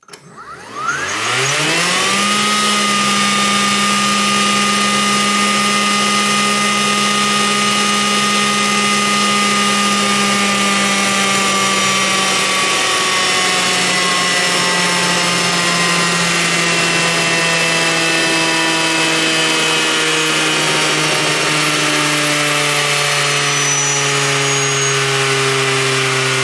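Stihl MSA 220 battery chainsaw's electric motor and chain running against a dynamometer: a whine that spins up quickly in about two seconds and holds steady. From about halfway it slowly sinks in pitch as the dyno load drags the motor down.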